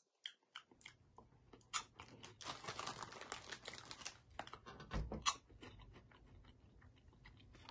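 Crunchy puffed corn snack being chewed: a string of short, crisp crackles and clicks, with a duller thump about five seconds in.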